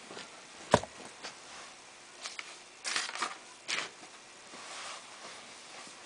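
A sharp knock about a second in, followed by a few short rustling, scratchy noises.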